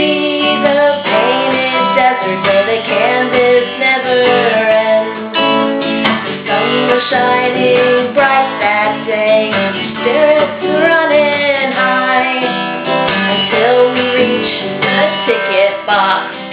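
Acoustic guitar strummed steadily under a woman's voice carrying a gliding melody, with no clear words.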